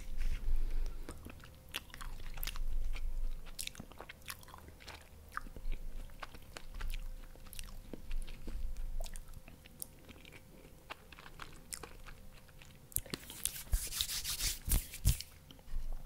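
Close-miked mouth sounds of chewing soft dessert cake, with scattered small clicks as a metal fork digs into the cake in its plastic trays. About two seconds of louder scratchy rustling near the end.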